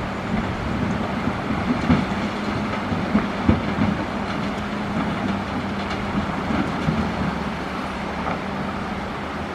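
Excavator's diesel engine running steadily, with irregular knocks and scrapes as the bucket digs into coral rock, loudest about two to four seconds in.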